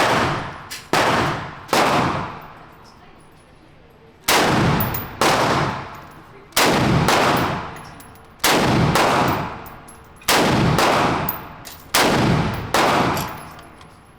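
A string of about ten gunshots at a shooting range, irregularly spaced, with a pause of about two seconds after the first three. Each sharp crack is followed by an echo that dies away over about a second.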